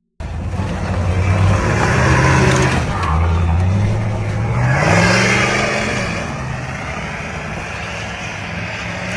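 Engine of a big lifted pickup on giant tyres revving hard under load as it climbs over a car. The pitch rises about four to five seconds in, then settles to a steady run.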